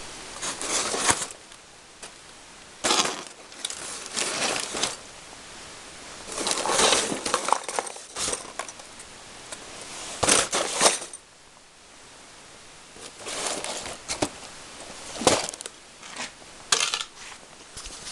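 Loose finished pole fishing floats rattling and clattering against each other in cardboard boxes as the boxes are handled and tipped, in about seven short bursts.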